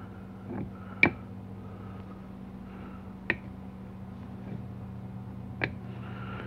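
Three light, sharp metallic clicks, spaced a couple of seconds apart, as steel automatic-transmission parts are set and shifted on a 700R4 low/reverse clutch pack, over a steady low hum.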